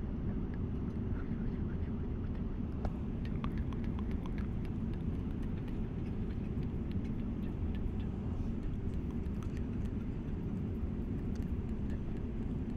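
Steady low drone of an airliner cabin in flight, with faint scattered clicks close to the microphone.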